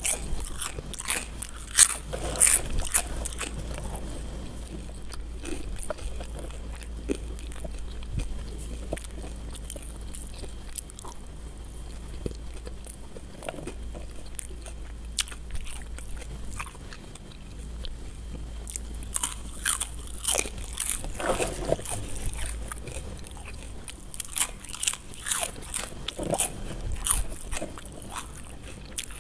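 Close-up crunching and chewing of crispy fried potato sticks. Clusters of sharp crackling bites come near the start and again through the last third, with quieter chewing between.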